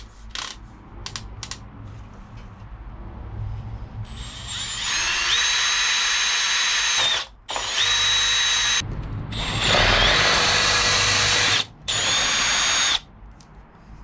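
Power drill boring a hole, run in several bursts from about four seconds in: each time its motor whine rises as it spins up and holds steady, with brief stops between runs.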